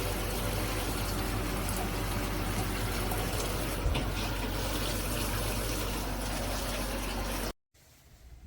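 Shower head spraying water steadily, with a brief thump about four seconds in. The spray stops abruptly near the end.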